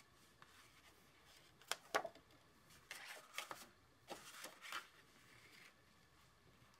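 Sheets of cardstock handled on a wooden tabletop: faint soft slides and a few light taps as a white liner is laid on a folded black card base and pressed down.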